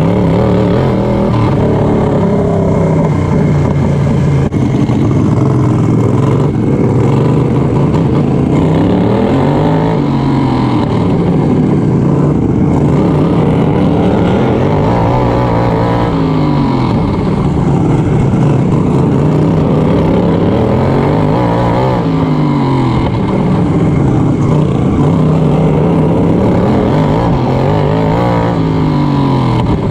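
Onboard racing lawn mower engine at high revs, its pitch rising on each straight and dropping for each turn, over and over, about every six seconds.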